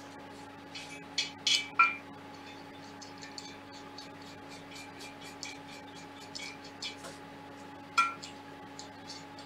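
Metal parts of a 3D printer frame (aluminium extrusion and frame plate) clinking and knocking together as they are fitted by hand. There are a few sharp, briefly ringing clinks around two seconds in and another near the end, with lighter ticks between, over a steady hum.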